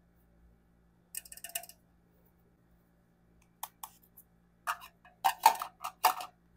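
Hard plastic heart-shaped makeup compacts and a clear acrylic organizer clicking and tapping against each other as they are handled and set in place: a quick cluster of light taps about a second in, a couple more near the middle, then a run of louder clicks over the last two seconds.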